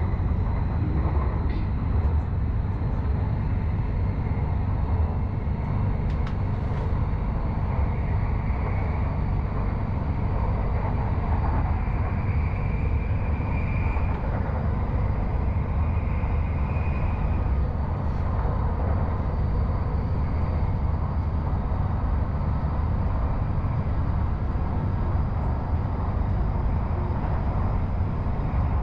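Cabin noise of a Bangkok Airport Rail Link electric train running at speed along the elevated viaduct: a steady low rumble of wheels and running gear. A faint higher whine comes and goes in the middle.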